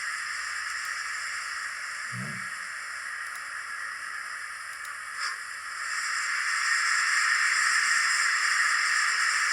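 Steam locomotive sound from a model loco's sound decoder, played through its small speaker: a steady hiss of steam that grows louder about six seconds in, with a short low sound about two seconds in and a brief click just after five seconds.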